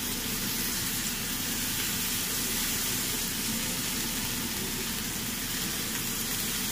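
Steady sizzling of garlic, tomato and green chilli frying in an iron kadai with fresh coriander leaves just added.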